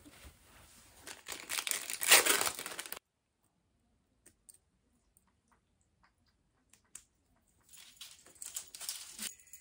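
Plastic packaging crinkling and tearing as it is handled and opened, loudest about two seconds in. It cuts off abruptly at three seconds; a few faint ticks follow, and the crinkling returns near the end.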